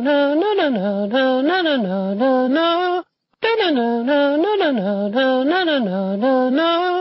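A cartoon character's voice singing a short wordless tune as a looped ringtone. The same melodic phrase plays twice, each time lasting about three and a half seconds, with a brief break between.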